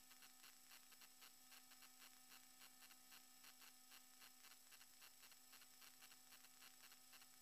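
Near silence: a faint, steady electrical hum and hiss with a fast, even ticking running through it.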